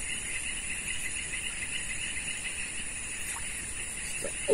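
Insects chirping steadily, crickets by the sound of it: a rapid, pulsing trill with a thin high buzz over it.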